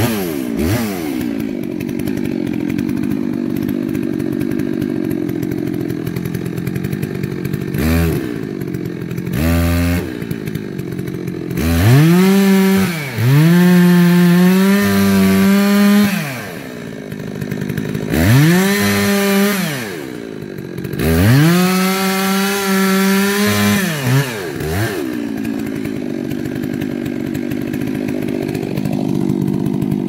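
Two-stroke chainsaw idling, blipped twice, then run up to full throttle three times for a few seconds each, its pitch rising at the start and falling at the end of each run, before settling back to idle.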